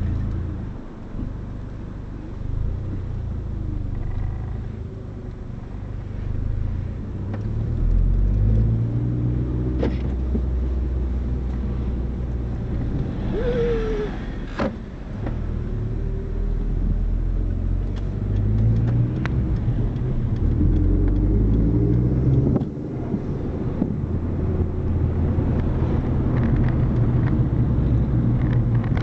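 Car running on the road, a steady low engine drone whose pitch rises with acceleration several times, as heard while driving. The annoying noise the owner is asking about cannot be singled out.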